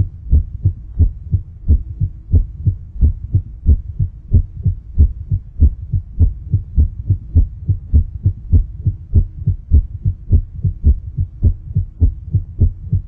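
Heartbeat sound effect: a steady, fast run of low thumps, about three a second.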